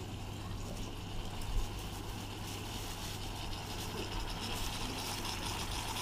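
Steak sizzling steadily in a pot on a camping canister gas stove, with one brief low knock about one and a half seconds in.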